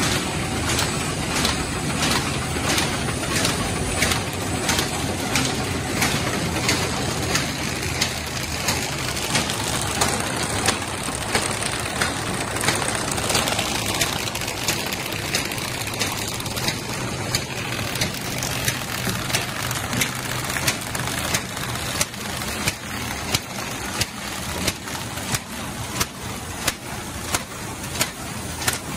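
Fully automatic kraft paper bag making machine running: a steady mechanical din with a regular clack roughly twice a second from its cycling mechanism.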